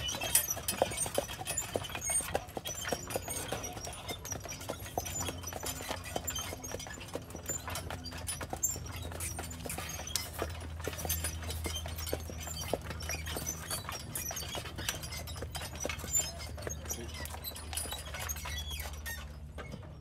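A pair of carriage horses walking on a packed dirt trail, their hooves clip-clopping in an uneven run of sharp knocks, with a steady low rumble underneath that grows from about five seconds in.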